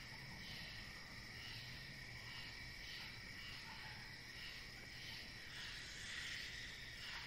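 Insects chirping steadily, with a short chirp repeating about twice a second over a continuous trill.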